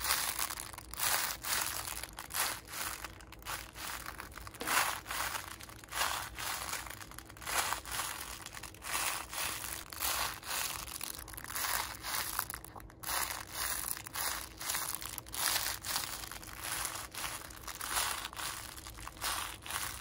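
Mylar foil crinkling inside a painted sponge squishy as it is squeezed and twisted by hand over and over, an uneven run of crackles.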